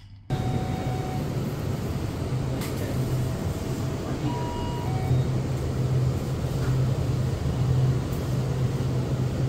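Steady low hum over an even hiss, the ambience inside a convenience store beside its refrigerated display cases, starting suddenly just after the beginning.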